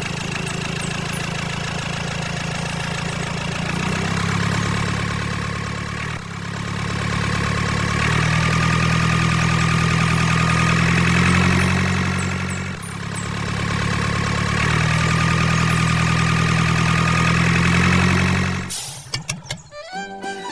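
Engine running steadily with a low, even rumble, in three spells that each build up in level, broken by brief dips about six and thirteen seconds in.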